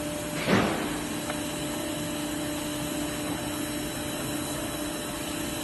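PUR laminating machine running, a steady hum over an even mechanical whir, with one short whoosh about half a second in.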